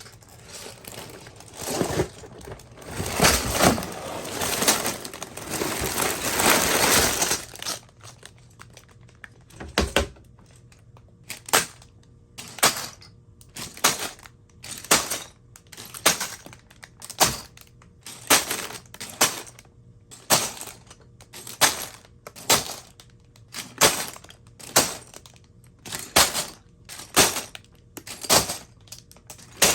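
Plastic LEGO parts bags crinkling and being torn open for the first several seconds, then a steady run of sharp plastic clicks about once a second as LEGO bricks are handled and snapped together.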